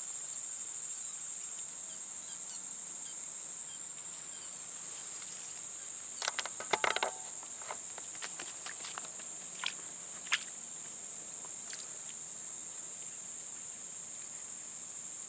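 Steady high-pitched chorus of insects such as crickets in grassy ground. A few short clicks and taps sound about six to seven seconds in, and twice more near ten seconds.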